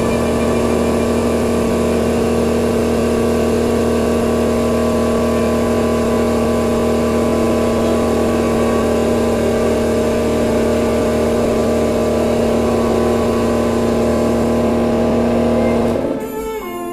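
Hydraulic press's pump motor running with a steady hum as the ram crushes an avocado; near the end its pitch drops as it winds down.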